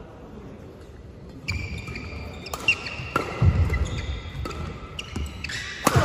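Badminton rally: rackets hitting the shuttlecock in several sharp cracks, with shoes squeaking and thudding on the court mat. The loudest hit, a hard smash, comes just before the end.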